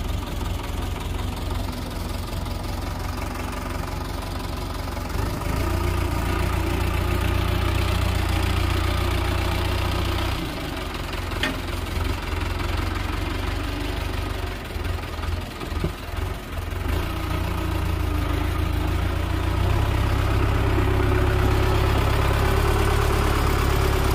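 Sonalika tractor's diesel engine running while it pulls a mounted potato planter through tilled soil and turns. The engine grows louder about five seconds in, eases around ten seconds, and comes up again near the end.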